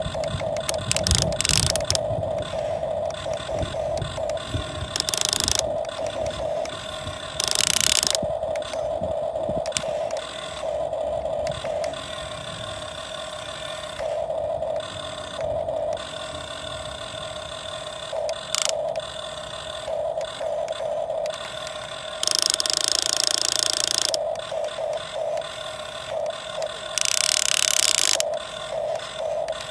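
Radio-controlled model excavator's motors and gears whining in short stops and starts as it is worked. Several louder hissing stretches of a second or two come through, the longest about 22 seconds in.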